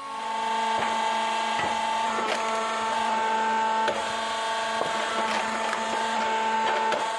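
Homemade hydraulic log splitter working: its power unit whines steadily while the ram drives logs onto the wedge, and the wood cracks and splinters sharply about once a second.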